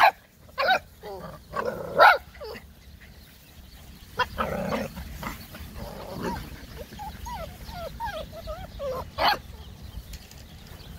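Silver Labrador puppies yipping in short, sharp, high-pitched barks, with squeaky wavering whines in between. The loudest yips come right at the start, about two seconds in, and a little after nine seconds.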